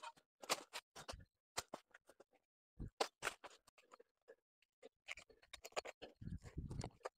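Digging in soil at the base of a banana sucker: short scrapes and knocks of a spade and a small hand tool in the earth, with a denser stretch of scraping and dull thuds about six seconds in.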